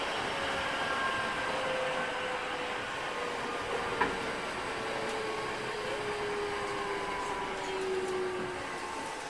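JR 205 series 5000-subseries electric train with Toyo IGBT VVVF inverter, heard from inside the car as it slows for a station. The motor whine falls slowly in pitch over the rolling noise, with a single sharp click about four seconds in.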